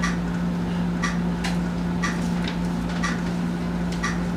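Short sharp clicks roughly once a second, with an occasional extra click in between, over a steady low hum.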